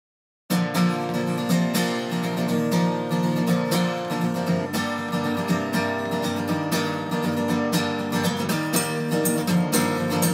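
Background music of strummed acoustic guitar, starting abruptly out of dead silence about half a second in.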